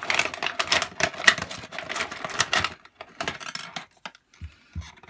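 Toy packaging being handled and opened by hand: a dense run of rapid crackling clicks that thins out after about three seconds, followed by two short low thumps near the end.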